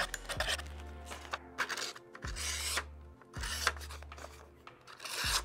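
Quick rasping strokes of a knife blade on diamond sharpening rods, then a few hissing slices of the knife through paper as the edge is tested, over background music.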